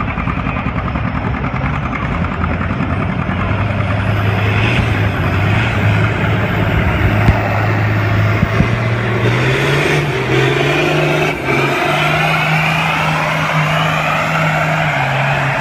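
John Deere Model A two-cylinder tractor engine running hard under load, pulling a weight-transfer sled down a tractor-pull track. The engine note steps up in pitch about ten seconds in and holds higher.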